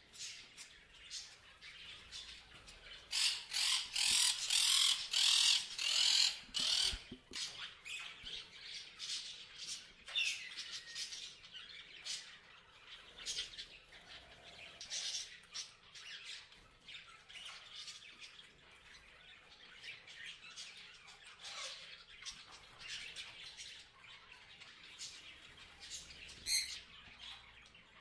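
Parrots chirping and squawking in a rapid run of short, sharp calls, loudest in a dense cluster about three to seven seconds in, then sparser calls.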